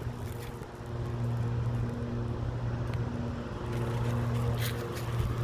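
A steady, low engine-like hum with a few fainter overtones above it, dipping briefly now and then.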